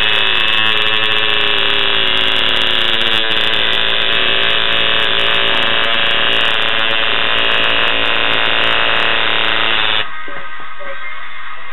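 Tattoo machine buzzing steadily as the needle works ink into the skin, then cutting off abruptly about ten seconds in.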